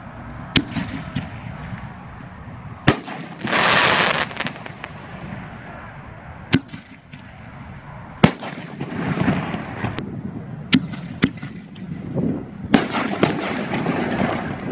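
Mad Ox Raging Bull consumer artillery shells going off: several sharp bangs, with a loud rushing blast about a second long between three and four and a half seconds in. From about nine seconds in there is a long, dense run of crackling from a crackle shell's break.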